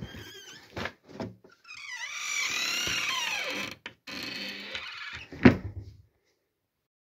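A wooden wardrobe door creaking on its hinges with a long, wavering squeak, then a shorter creak, and shutting with a loud thump about five and a half seconds in. A few light knocks of things moved on the shelves come before it.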